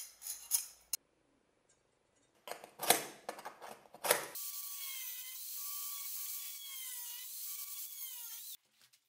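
A few sharp metal-on-metal scraping strokes as the cut line is marked on the steel tang, then an angle grinder with a cut-off disc cutting through the steel, its whine wavering up and down as the disc bites. The grinder sound cuts off suddenly near the end.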